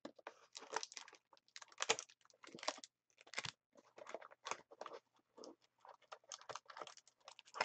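Cardboard and plastic card packaging being handled and opened by hand: quick, irregular clicks, taps and crinkles.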